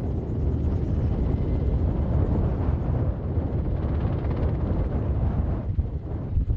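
Sikorsky CH-148 Cyclone helicopter on the ground with its rotors turning, taxiing slowly away: a steady deep rumble of rotor and turbines.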